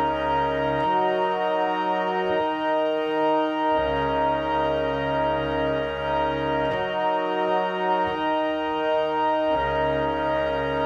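Instrumental background music: a slow run of long held chords that change every one to three seconds.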